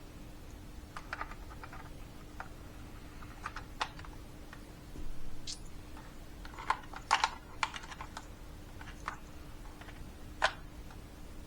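Irregular light plastic clicks and taps as the climate control unit's buttons and housing are handled and clipped together, with a small cluster of clicks about two-thirds of the way through, over a faint steady hum.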